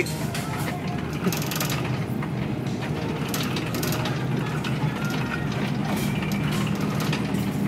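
Metal shopping cart being pushed along a store floor, its wheels rolling and its wire basket rattling, with scattered clicks over a steady low hum.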